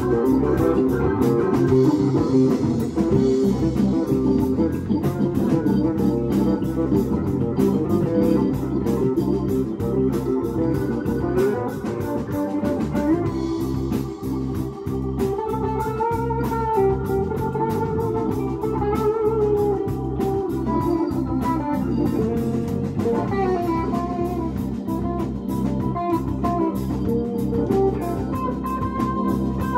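Live rock band playing: electric guitar carrying the melody over bass guitar, keyboards and drums.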